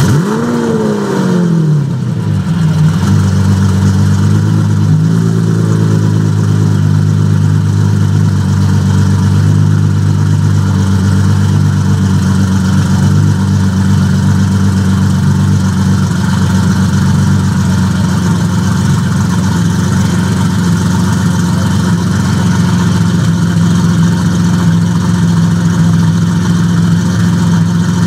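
Mansory Carbonado Apertos's twin-turbo Lamborghini V12 engine dropping from a rev back to idle over the first two seconds, blipped lightly about five seconds in, then idling steadily.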